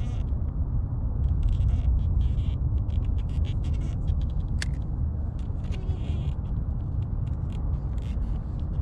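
Wind buffeting the microphone: a steady, uneven low rumble, with a single sharp click about halfway through.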